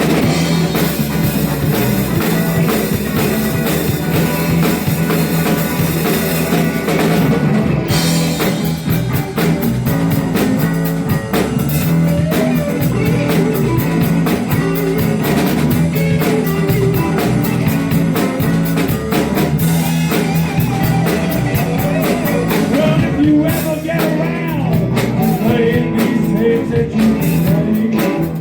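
Live blues band playing, with electric guitar and drum kit.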